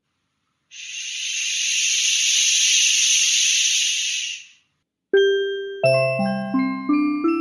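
Housbay white noise machine's 5-watt speaker playing its built-in sounds. A steady high-pitched hiss fades in just under a second in and fades out after about four seconds. About five seconds in, a chiming melody of bell-like, glockenspiel-style notes begins.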